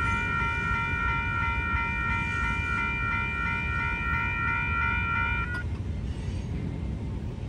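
Railroad crossing warning bell ringing in a fast, even repeating pattern, then cutting off abruptly about five and a half seconds in as the crossing gates start to rise after the train has cleared. A steady low rumble continues underneath.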